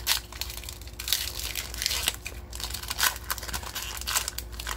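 Foil wrapper of a trading-card pack being torn open and crinkled by hand: a run of irregular crackling and rustling with sharp little crackles.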